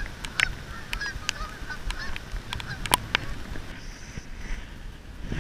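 Geese honking, a string of short faint calls, with a few sharp clicks in between.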